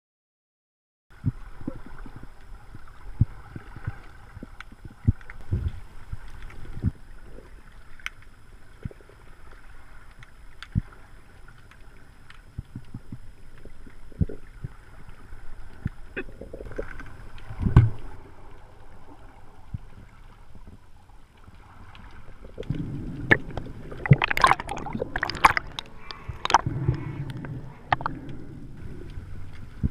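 Underwater audio through a camera's waterproof housing: low water rushing with scattered sharp clicks and knocks, starting about a second in. A louder stretch of rushing and bubbling comes in the last several seconds.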